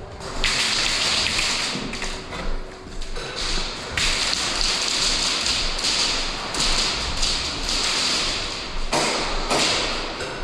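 Airsoft guns firing long bursts of rapid tapping shots. There are three stretches of fire: one early, a longer one through the middle, and a short one near the end.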